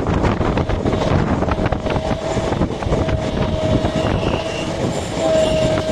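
Passenger train running at speed with wheels clattering over the rails. From about a second in, the WAP5 electric locomotive's horn sounds in long steady blasts broken by short gaps.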